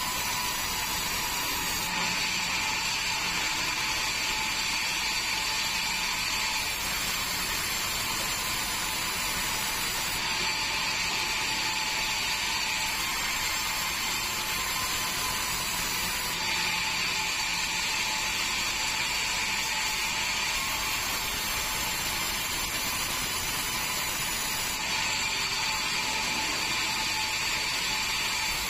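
Band sawmill running steadily with a whining blade. A higher whine comes and goes in four stretches of a few seconds each.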